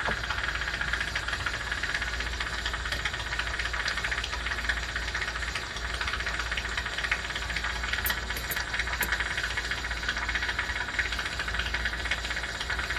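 Jewelry steam cleaner running in the background with a steady hiss over a low hum; the owner thinks the steamer may be on its way out.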